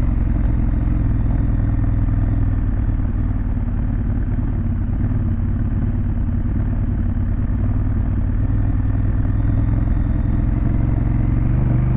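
Honda Africa Twin's parallel-twin engine with an aftermarket Fuel exhaust, running at a steady, even engine speed while the bike holds its pace on the road.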